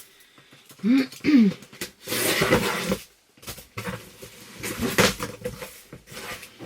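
A large cardboard box being handled, with rustling, scraping and a few knocks. Two short grunt-like vocal sounds come about a second in.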